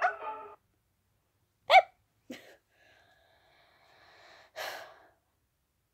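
Cats: a loud, short mew that rises and falls, a second smaller one, and a short breathy hiss near the end.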